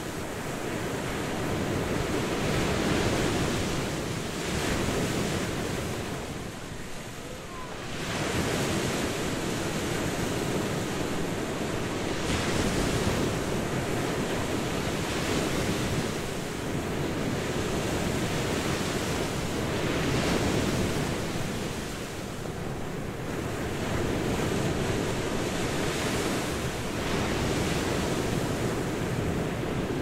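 Ocean surf breaking and washing up a beach in a continuous rush that swells and eases every few seconds, with a lull about seven seconds in before the next wave breaks.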